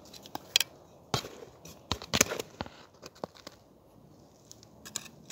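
Soil and compost being handled and pressed around a strawberry plant's roots close to the microphone: irregular crunches, scrapes and sharp crackles, loudest about half a second and two seconds in.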